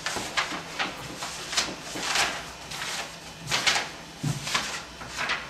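Sheets of paper rustling as they are handled and leafed through, a string of short dry crackles.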